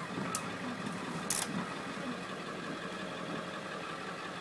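Ford 7.3 Powerstroke turbo diesel V8 idling steadily, heard from inside the bus. Two short clicks come in the first second and a half.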